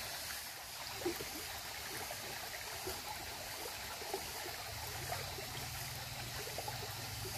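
Small, shallow stream running steadily: a constant rush and trickle of water rippling over stones and debris, with a couple of faint ticks.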